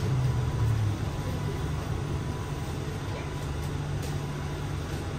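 Gatwick Airport's automated inter-terminal shuttle train slowing as it pulls into the station: its low drive hum falls in pitch in the first second, then settles into a steady low hum.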